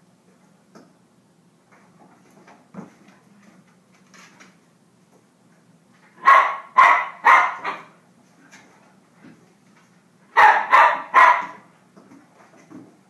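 Corgi puppy play-barking: a quick run of four barks about six seconds in, then three more about four seconds later.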